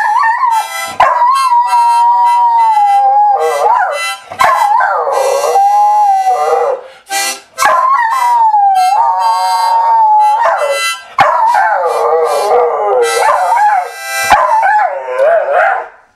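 An Australian Cattle Dog howls in long, wavering notes along with a harmonica. Both break off briefly several times.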